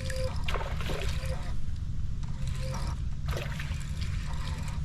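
Water splashing and trickling in a few short bursts as a hooked bass thrashes at the surface during the fight, over a steady low wind rumble on the microphone.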